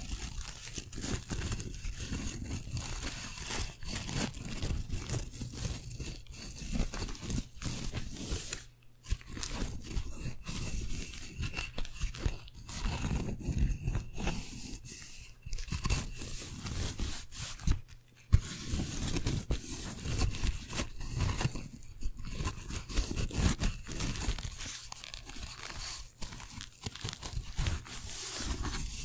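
Thin slatted folding fan handled close to a microphone: its stacked blades are riffled, fanned and rubbed together in a dense crackling, clicking rustle. There are two brief pauses, about nine and eighteen seconds in.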